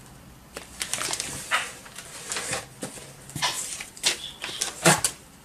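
Plastic packaging bags crinkling and rustling as bagged 3D-printer parts are handled in a cardboard box, in irregular crackles with a few sharper crinkles.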